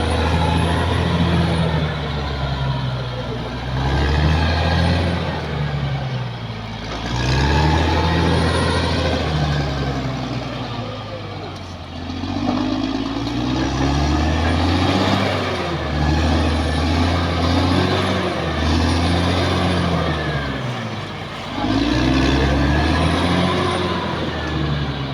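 Caterpillar D6R XL bulldozer's diesel engine working under load, its pitch rising and falling in repeated cycles every few seconds as it pushes and backs off.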